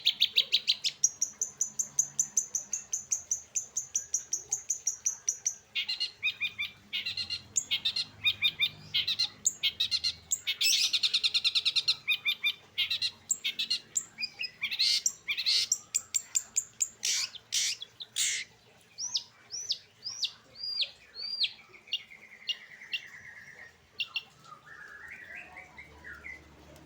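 Long-tailed shrike (cendet) singing a fast, varied song: rapid runs of sharp chattering notes, a held high note, and short looping whistles, with a lower trill near the end.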